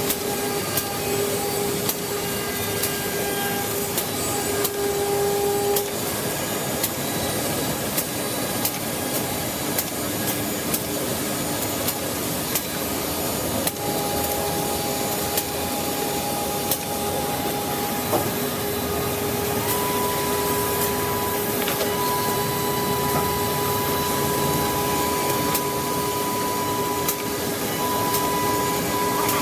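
A CNC six-sided drilling machine running and boring holes in wood panels: a steady mechanical noise with whining tones that start and stop, and frequent sharp clicks.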